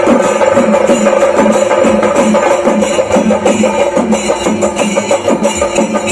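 Chenda melam: chenda drums beaten fast with sticks in a dense, driving rhythm, with the clash of ilathalam hand cymbals.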